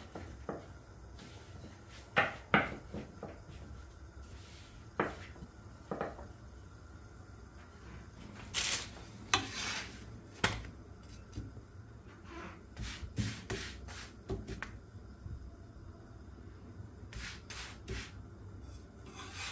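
Wooden spatula knocking and scraping on a non-stick flatbread pan while a thin yufka dough sheet cooks dry, with a short run of rustling about nine seconds in as the sheet is lifted and flipped. A steady low hum runs underneath.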